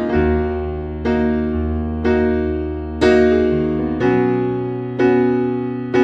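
Background piano music, an electric-piano sound, with a new chord struck about once a second and fading away over a held bass note.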